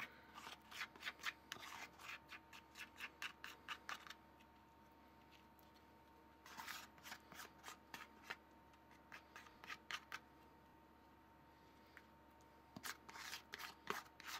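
Plastic spatula scraping sauce out of a plastic bowl in quick, faint strokes, in three spells with short pauses between.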